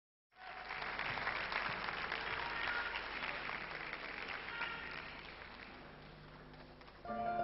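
Audience applauding, slowly dying away. Near the end the orchestra begins to play.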